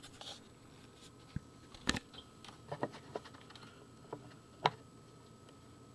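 Scattered sharp clicks and light knocks, about six over a few seconds, from plugging in a light and handling it.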